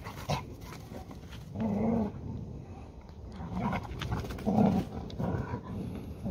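Dogs, a yellow Labrador retriever and a Hungarian Vizsla, growling in play as they tussle over a ball. There are several short growls, the loudest about four and a half seconds in.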